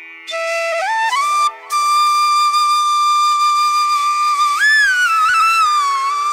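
Background music: a single melody line of long held notes and pitch slides over a steady drone, with a brief break about a second and a half in.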